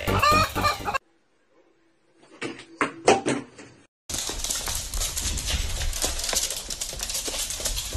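Rapid clicking of a corgi's claws on a hard floor as it hurries away, over the noise of a phone recording. Before that, electronic music cuts off about a second in, followed by a short silence and a few scattered clicks.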